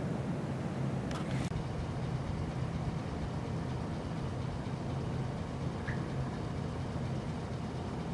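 Steady low engine hum with an even hiss over it, and a brief noise burst about a second in.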